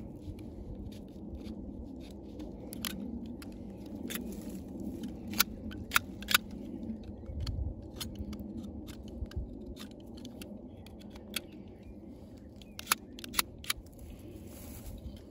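Pruning shears snipping: a handful of short, sharp clicks, three together near the middle and three more near the end, over a low steady background rumble.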